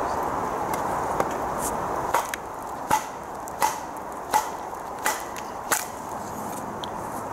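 A wooden baton striking the spine of a machete set across a log, batoning it down to split firewood. About six sharp wooden knocks come roughly every 0.7 s, starting about two seconds in, with a lighter tap just before.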